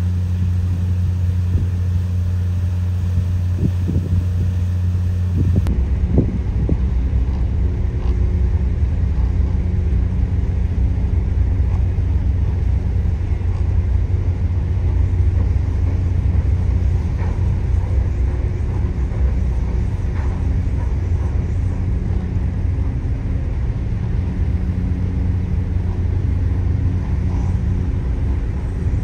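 Ship's diesel engines running with a steady low hum. After a cut about six seconds in, a deeper steady engine rumble as a large ship moves past.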